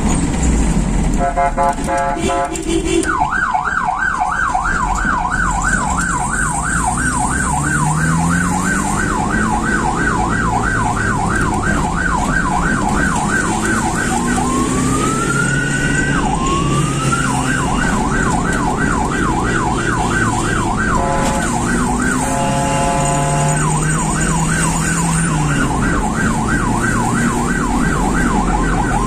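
Ambulance's electronic siren sounding, mostly in a fast yelp that sweeps rapidly up and down. Near the middle it breaks twice into a slow rising wail, with a short burst of steady pulsed horn tones. Underneath, the vehicle's engine rises and falls in pitch as it accelerates.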